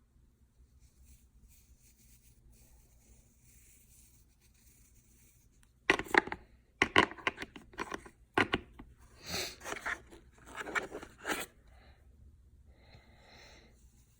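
Packaging being handled: a run of irregular rustling, scraping and crinkling noises that starts about six seconds in and stops about eleven and a half seconds in, with a softer rustle a little later.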